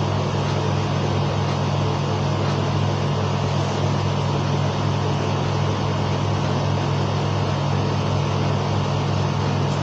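Steady low mechanical hum with a hiss above it, unchanging throughout.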